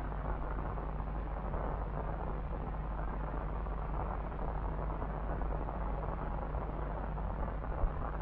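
Steady dark ambient rumble: an even noise bed with a low hum beneath it, with one brief pop near the end.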